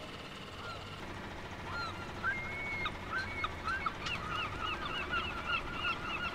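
Gulls calling. A few separate calls and one drawn-out note start about two seconds in, then speed up into a rapid run of about four calls a second, over low, steady background noise.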